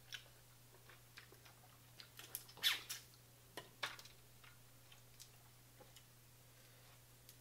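Scattered small clicks and crackles of seafood-boil shells being handled and peeled by hand, the loudest cluster about two and a half seconds in, over a faint steady hum.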